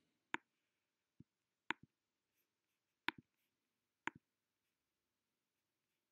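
Computer mouse clicking: about five short, sharp clicks over near silence, three of them in quick double clicks.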